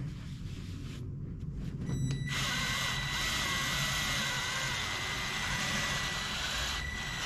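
Cordless Draper rotary polisher starting up about two seconds in and running steadily, a constant high whine over a hiss, as its foam mop buffs a polycarbonate headlamp lens with cutting compound.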